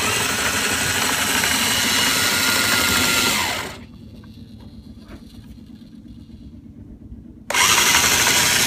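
Electric anchor windlass motor running as it hauls in anchor chain, with a steady whine; it stops a little over three seconds in, winding down with a falling whine, then starts again near the end.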